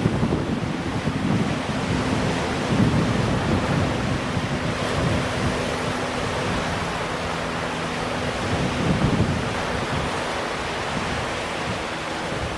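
Wind buffeting the microphone in uneven gusts, with a faint steady low drone underneath.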